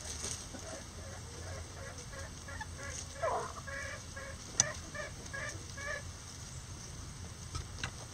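Bantam chickens clucking in a run of short notes, about three or four a second, with one louder squawk about three seconds in. A single sharp tap comes just after the middle.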